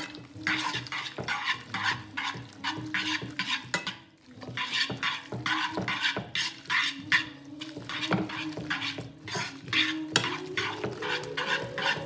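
Metal tongs stirring and tossing spaghetti in a non-stick frying pan, with quick repeated scrapes and clicks against the pan and a short pause about four seconds in. This is grated pecorino being worked into the pasta and its starchy water to form the cacio e pepe cream. A steady low hum runs underneath.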